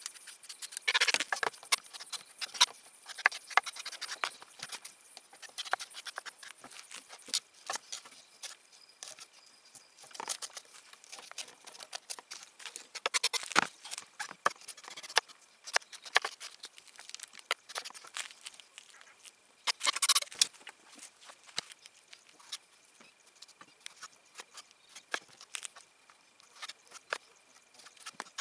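Kitchen knife chopping cucumber and tomato on a bamboo cutting board: irregular sharp taps of the blade on the wood, with a few denser bursts of scraping and cutting. A faint steady high whine runs under it.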